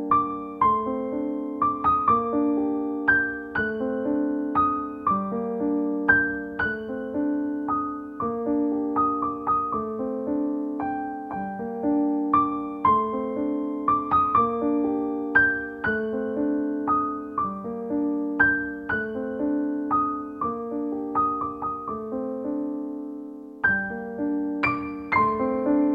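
Background music: a slow, gentle piano piece, with a melody over sustained lower notes in a steady repeating pattern.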